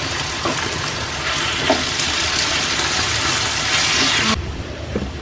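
Raw banana slices sizzling in hot oil in a nonstick frying pan while a spatula stirs in the chilli powder, with a few light clicks of the spatula against the pan. The steady sizzling hiss grows louder about a second in and cuts off suddenly a little after four seconds.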